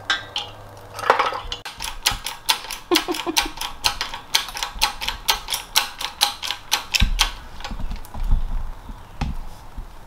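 Rapid, even clicking of a hand ratchet wrench working a suspension-link fastener, about five clicks a second for several seconds, followed by a few dull knocks.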